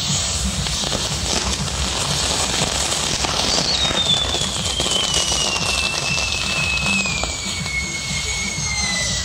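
A castillo fireworks tower burning: the spinning fire wheels and fountains give a dense, continuous crackle. About three and a half seconds in, a firework whistle starts and slides steadily down in pitch.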